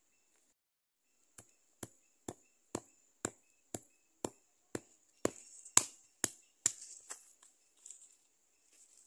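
Dried tropical almond (kottamba) nuts being cracked open on a flat stone by striking them with a hand-held stone: a steady run of sharp knocks, about two a second, starting a little over a second in, the loudest a little past the middle.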